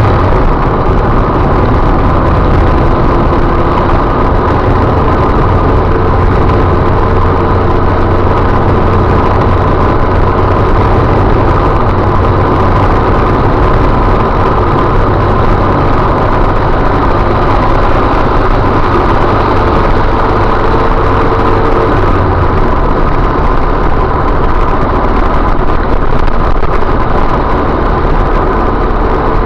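Car engine and tyre noise heard from inside the cabin while driving, a steady loud drone with a low hum that changes about three quarters of the way through.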